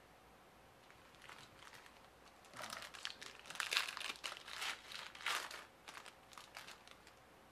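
A foil hockey card pack being torn open and crinkled by hand: a run of quick crackles that starts about a second in, is loudest in the middle and tails off near the end.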